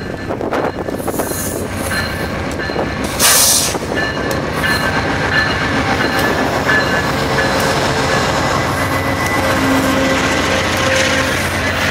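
VIA Rail passenger train led by a GE P42DC diesel locomotive passing close by, a steady rumble of engine and wheels with a faint steady metallic squeal from the wheels. A brief loud hiss comes about three seconds in.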